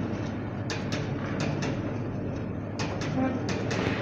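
Passenger train passing: a steady rumble with clacks of the wheels over the rail joints, coming in quick pairs.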